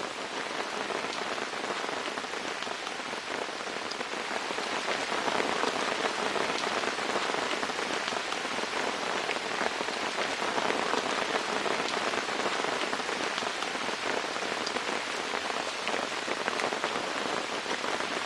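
Steady rain falling, a dense hiss of many small drop impacts, growing a little heavier about four seconds in.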